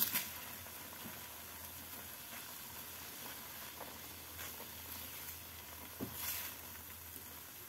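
Breadcrumbs and milk cooking in ghee in a frying pan, a faint steady sizzle, with a few soft scrapes of a spatula stirring the mixture, the clearest about six seconds in.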